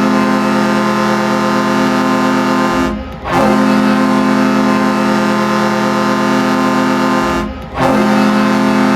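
Fort Wayne Komets' 1997-98 arena goal horn blaring a steady multi-tone chord, the signal for a goal. It sounds in long blasts of about four seconds, with brief breaks about three and seven and a half seconds in.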